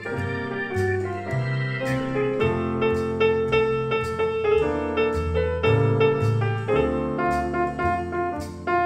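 Live jazz: a grand piano solo with an electronic keyboard accompanying and a bass line of low notes moving underneath; the saxophone is silent.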